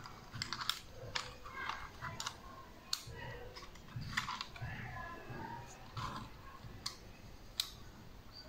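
Plastic clicks and light rattling of a foldable mini drone's hinged arms being swung shut and the body handled, with irregular sharp clicks about once a second.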